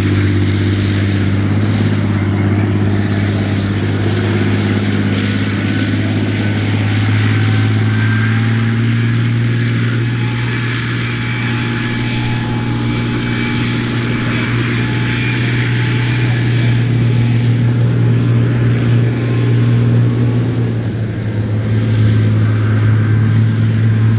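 Challenger 1 main battle tank on the move, its Perkins Condor CV12 V12 diesel engine running at a steady low drone with a thin high whine above it.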